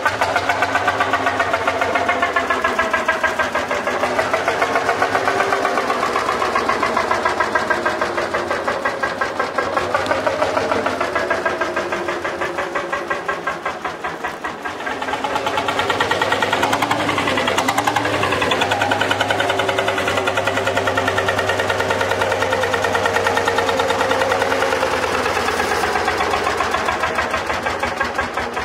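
Société Française Vierzon 402 tractor's single-cylinder two-stroke semi-diesel engine running with its characteristic 'poum poum poum' beat as the tractor is driven. The engine eases off briefly about halfway through, then picks up again.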